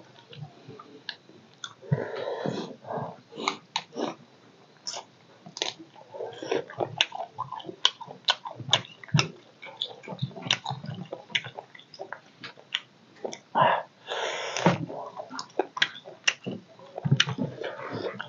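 Close-up mukbang eating sounds: wet chewing and lip-smacking of a mouthful of curry and rice eaten by hand, with many short sharp mouth clicks. There is one louder rushing sound lasting about a second, a little past the middle.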